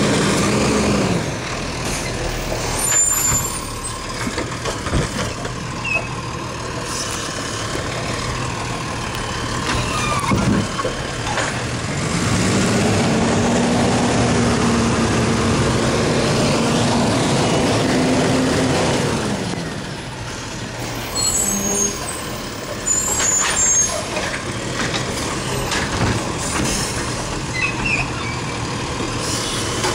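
Automated side-loader garbage truck working at the curb, its diesel engine and hydraulics running throughout, with air-brake hisses. About midway the engine revs up, holds for several seconds and drops back. Knocks and bangs come near the end as the arm lifts and empties a cart.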